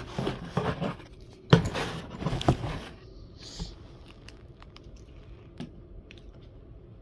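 Cloth rustling and handling noise close to the microphone, loudest in the first three seconds, then a few faint clicks.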